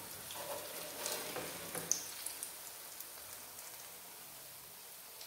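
Batter-coated plantain fritters sizzling steadily in hot coconut oil in a frying pan, with a few light clicks of a metal spatula in the first two seconds.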